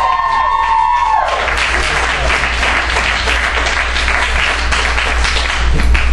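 Audience whooping with long, high held cries in the first second, then clapping and cheering.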